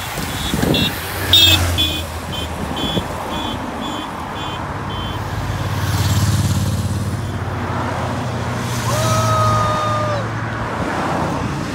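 Race convoy cars driving past with their engines running. A run of short high-pitched beeps comes in the first few seconds, and a car horn sounds once for about a second near the end.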